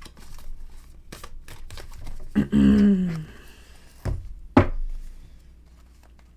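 Tarot cards being handled on a table: scattered soft taps, slides and rustles of the cards, with a sharper slap about four and a half seconds in. A brief murmured voice about two and a half seconds in.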